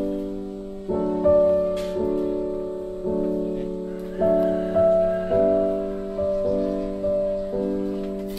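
Slow background piano music, with chords struck about once a second and each left to fade.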